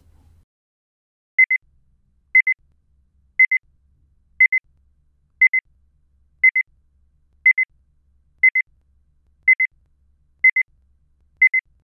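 An electronic beeper sounding short, high double beeps, one pair each second, eleven pairs in all, starting about a second and a half in.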